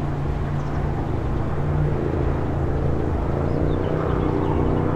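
Airbus A350's twin Rolls-Royce Trent XWB turbofans passing overhead on landing approach: a steady low jet rumble with a humming layer of engine tones that grows gradually louder.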